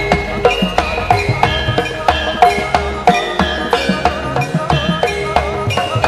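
Javanese gamelan playing an instrumental passage: bronze keyed metallophones and kettle gongs struck in an even pattern of about four strokes a second, ringing over drums.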